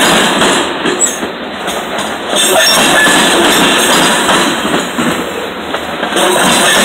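Covered hopper cars of a freight train rolling past: a loud, steady rumble and clatter of steel wheels on the rails, dipping briefly twice as the cars go by.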